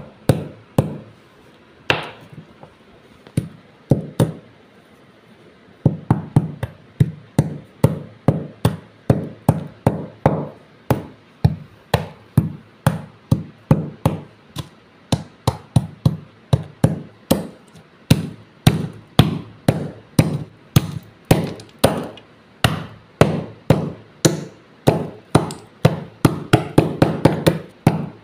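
Broken terracotta clay diyas crunching as a hand-held stone pounds them against a tile floor: sharp, crisp impacts. A few spaced strikes at first, then a steady beat of about two a second that quickens near the end.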